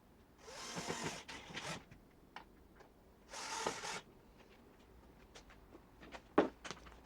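Objects being handled and set in place: two short rasping scrapes, then a few light clicks and a sharper knock near the end.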